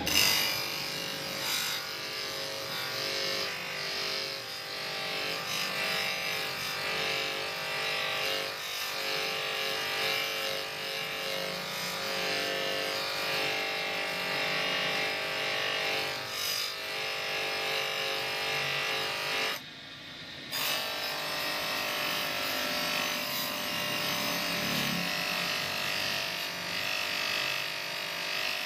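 A knife blade is ground against a spinning grinding wheel on an electric grinder: a steady motor hum under a continuous rasping grind of steel on the stone. The sound drops out for about a second roughly two-thirds of the way through, then resumes.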